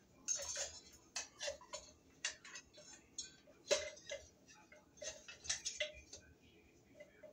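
Irregular light clicks, taps and rustles of a ceiling fan's downrod fitting and its lead wires being handled and fed through by hand, with one sharper knock a little under four seconds in.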